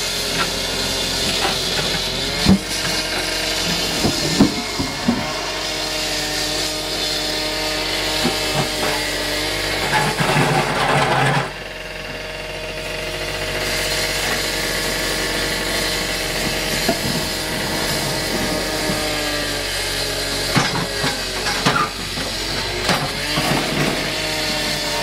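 Trackhoe's diesel engine running under load, its pitch rising and falling, with scattered knocks and scrapes from the demolition of the old concrete driveway.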